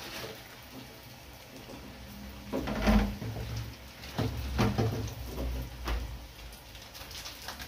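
Metal spatula knocking and scraping against a wok as cubes of tofu are turned in hot frying oil: several sharp knocks, the loudest about three seconds in, over a low rumble.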